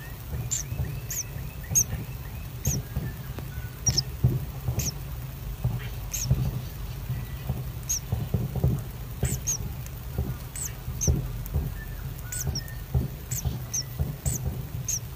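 Common kingfishers in the nest burrow giving short, high squeaks, about one or two a second, over a low steady hum.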